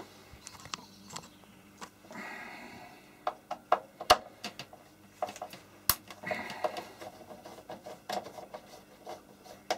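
Hands handling things on a workbench: scattered small clicks and light knocks, a short rustle about two seconds in, and two sharp clicks about four and six seconds in.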